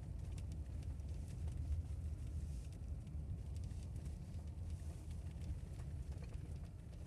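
Car driving on a packed-snow, icy road, heard from inside the cabin: a steady low engine and tyre rumble with faint scattered clicks.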